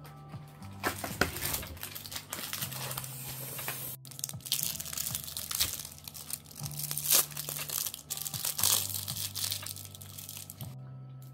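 Close-miked crisp crunching and crinkling from eating crispy pan-fried cabbage pancake, a quick run of sharp crackles, over soft background music.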